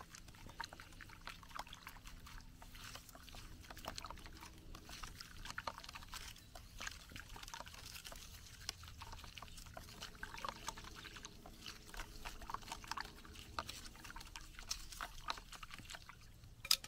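A stick stirring wood ash and water in a plastic yogurt tub: faint, irregular scrapes, taps and small sloshes, with one sharper knock near the end.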